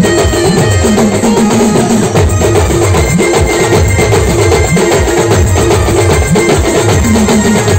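A Ganesh band playing loud live music, with steady drumming over a deep, shifting bass line.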